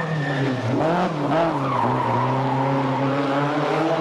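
Rally car engine running hard, its note dipping and climbing during the first second, then holding at a steady pitch.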